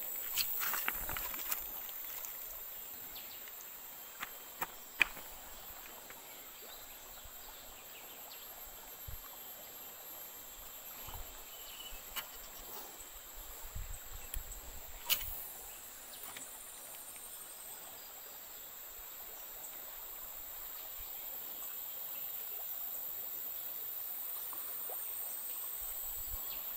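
Rainforest river ambience: insects buzzing steadily and high-pitched, over a soft wash of the shallow stream running over stones. A few sharp clicks and knocks break in, the loudest about five seconds and about fifteen seconds in.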